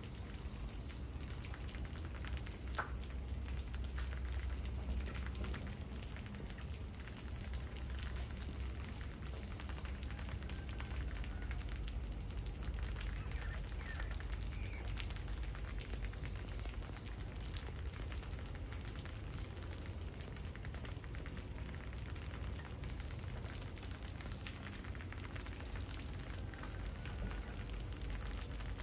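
A crowd of field mice husking and chewing unhulled rice grains, a steady dense crackle of many tiny clicks, with a low hum underneath.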